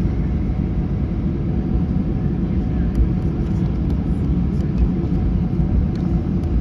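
Inside the cabin of a Ryanair airliner taxiing, its jet engines at idle and the rolling airframe give a steady low rumble.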